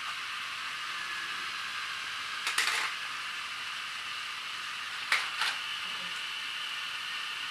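Motorized plastic toy trains crashing onto a pile of derailed trains: two short clattering crashes, each a quick cluster of plastic knocks, about two and a half seconds in and again about five seconds in, the second the louder. Underneath, the steady high whir of the toy trains' running motors.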